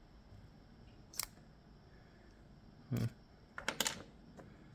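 Small metallic clicks from the parts of an Ezcurra DS-10 pin-tumbler lock being worked by hand: one sharp click about a second in, a knock around three seconds, and a quick run of several clicks near the end.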